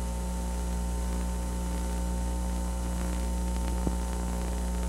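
Steady electrical mains hum with hiss on an old videotape audio track, with no programme sound over it. There is one faint click about four seconds in.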